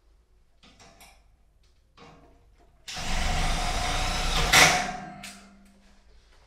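Cordless screwdriver driving a screw into a metal CD ceiling profile. After a few light clicks, its motor runs for under two seconds about three seconds in, ends with one sharp loud moment, then winds down.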